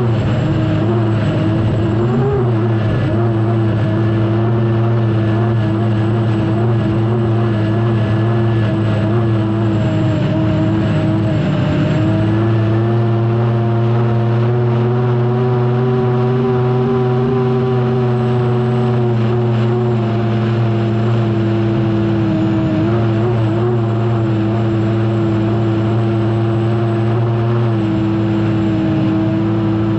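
Turbine engine of an unlimited hydroplane running at racing speed, heard from onboard, a loud steady tone with several pitches stacked together. The pitch dips briefly about ten seconds in, then rises a little and eases back near twenty seconds.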